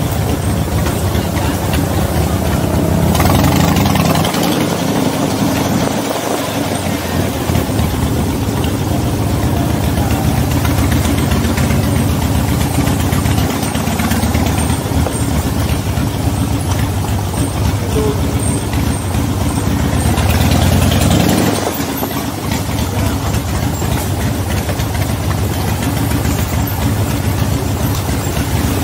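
V-twin motorcycle engine running under way, its note swelling with throttle a few seconds in and again about twenty seconds in, then falling back.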